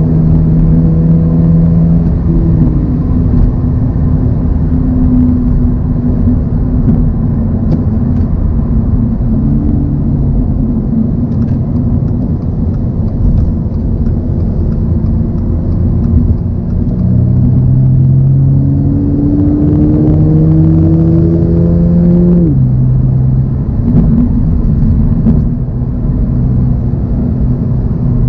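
2024 Toyota GR86's 2.4-litre flat-four engine pulling at road speed over steady road noise. Its note climbs for several seconds, then drops sharply about two-thirds of the way through as it shifts up a gear.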